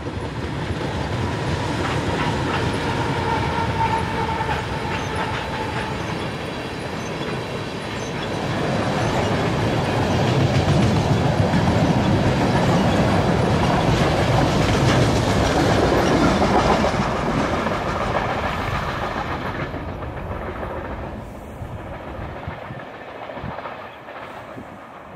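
Freight train of empty tank cars rolling past: steel wheels rumbling and clicking over the rail joints, with a thin steady ringing tone in the first several seconds. The sound fades over the last several seconds as the end of the train nears.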